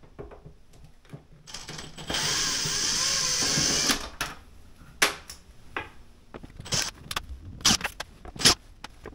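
Cordless drill/driver running for about two seconds, its pitch wavering, as it backs a screw out of the sheet-metal front panel of a heat recovery ventilator. It is followed by several sharp clicks and knocks a second or so apart.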